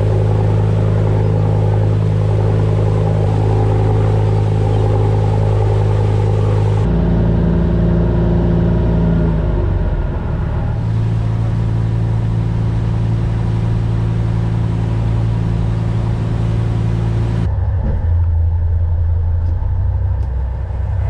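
A charter boat's engine running steadily, a constant droning hum. Its pitch and tone change suddenly a few times: about a third of the way in, about halfway, and near the end.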